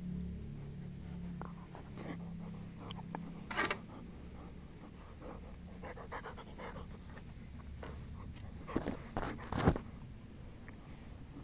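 German Shepherd grooming itself, licking and nibbling at its paw and fur: scattered short wet licking and chewing sounds, with a louder cluster near the end.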